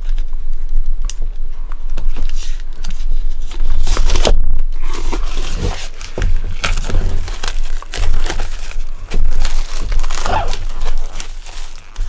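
Plastic shrink wrap being torn and crumpled off a Pokémon TCG Elite Trainer Box: irregular crinkling and tearing crackles.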